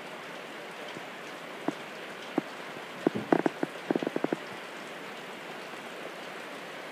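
Steady rain falling, with a handful of sharper taps, a cluster of them around the middle.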